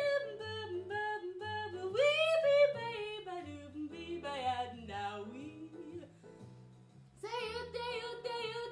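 A woman's voice scat singing a jazz line without words over a jazz backing track. The bass line steps about twice a second. The voice drops away briefly around six seconds in and comes back near the end.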